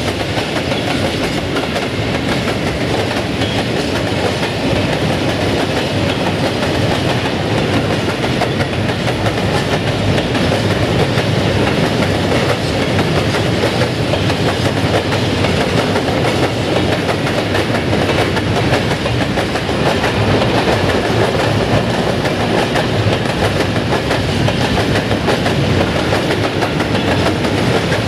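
Freight train of tank wagons rolling past close by, wheels clattering steadily over the rail joints.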